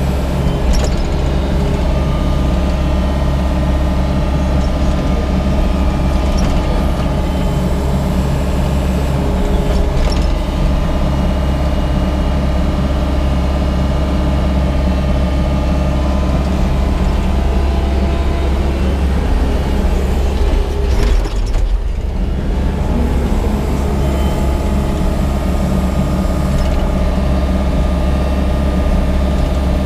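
Yanmar crawler excavator's diesel engine running steadily under load as the machine digs, with the note dipping briefly a little over 20 seconds in.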